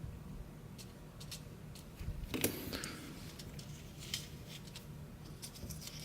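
Scattered light clicks and taps of small lock parts being handled, the most distinct at about two and a half seconds in.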